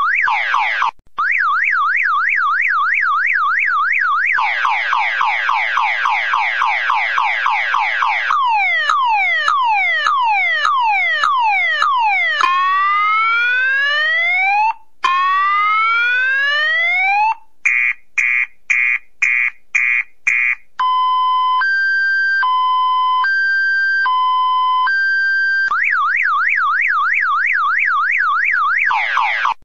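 Car alarm siren cycling through its tone patterns. It opens with a fast warble, then runs dense falling chirps, slower downward sweeps, rising whoops, a quick run of short beeps and a slow alternating two-tone hi-lo, then returns to the fast warble.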